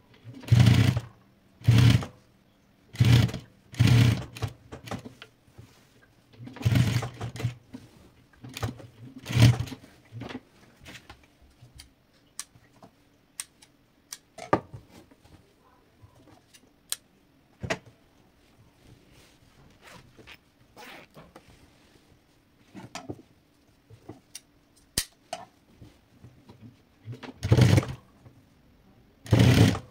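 Industrial single-needle lockstitch sewing machine running in short bursts of about a second, stitching piping onto cushion fabric. A long middle stretch holds only scattered small clicks and handling sounds, and the machine runs twice more near the end.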